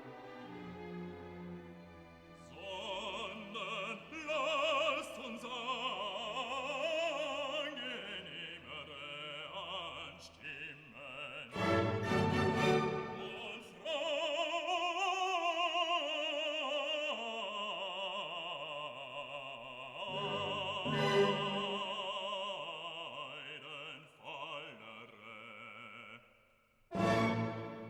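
Background music: a classical piece with a wide-vibrato operatic voice over orchestral accompaniment, swelling louder a few times.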